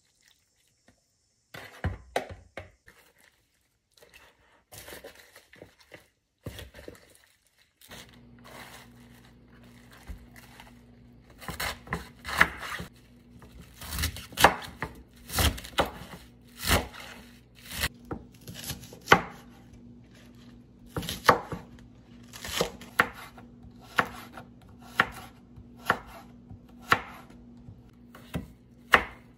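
Kitchen knife chopping through napa cabbage and radish onto a wooden cutting board, one sharp stroke every second or so. A few scattered light knocks come first, before the chopping settles into its steady pace.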